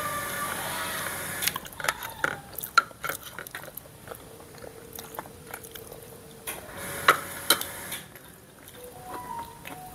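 Metal spoons and forks clinking and scraping against plates during a meal, with chewing; a scatter of sharp clicks, the loudest a little before and after the seven-second mark.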